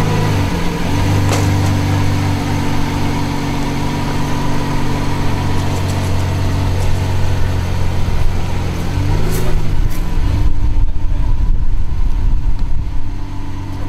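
Lamborghini Veneno's V12 idling steadily as the car creeps down off the trailer ramps and onto the road. About nine seconds in the even tone breaks up and a louder, uneven low rumble takes over.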